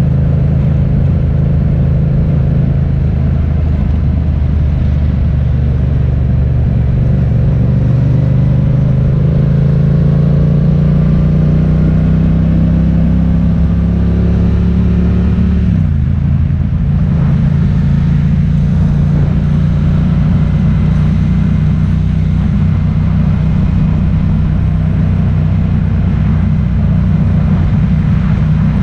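Motor vehicle engine running steadily under way, with road noise. Its pitch climbs slowly for several seconds, then drops sharply about halfway through and settles again.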